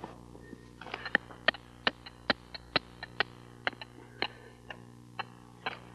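Hammer blows, a steady run of sharp strikes at about two to three a second that start about a second in, over a steady low hum.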